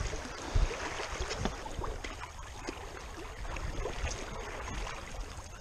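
Shallow creek water running over stones, with sloshing from legs wading through it and a low thump about half a second in.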